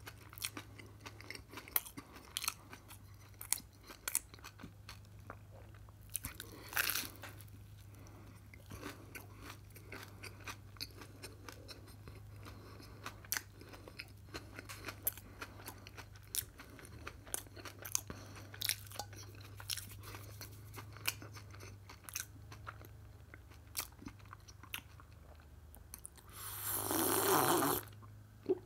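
Close-up crunching and chewing of toasted bread topped with cheese and a radish slice: crisp crunches scattered throughout. Near the end comes a longer, louder stretch of drinking from a glass.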